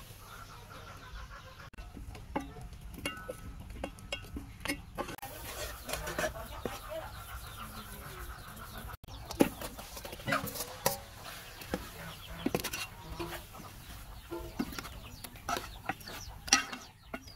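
Metal spoon and ladle clinking and scraping against an aluminium cooking pot as food is stirred, in sharp irregular clicks. Chickens cluck in the background.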